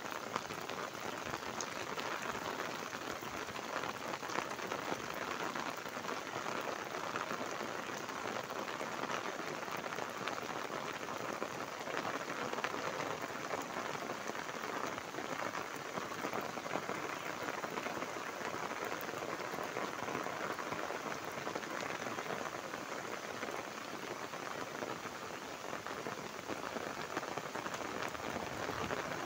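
Steady rain falling: an even, unbroken hiss of countless drops.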